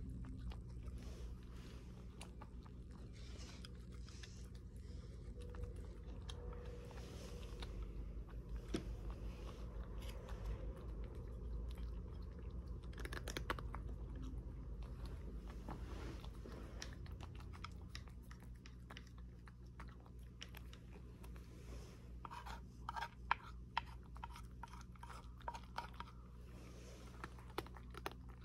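A domestic cat eating dry kibble: steady chewing with many small crisp crunches, the sharpest and loudest coming near the end.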